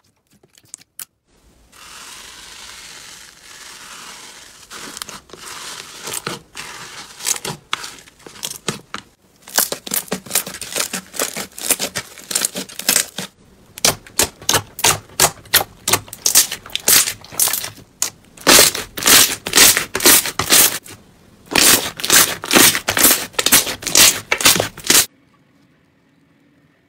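Hands kneading and pressing slime. It crackles at first, then gives a run of loud pops and clicks from trapped air bursting under the fingers, about three a second at their fastest. The pops stop abruptly near the end.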